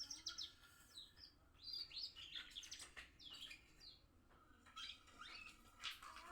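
Two-month-old young canary practising its song: faint, broken twittering of short rising and falling chirps.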